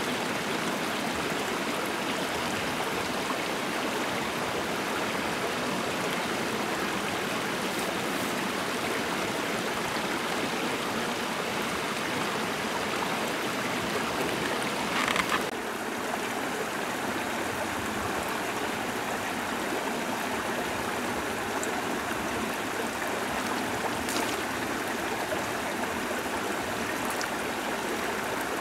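Shallow rocky stream running steadily, a continuous rush of water over stones, with one short louder burst about halfway through.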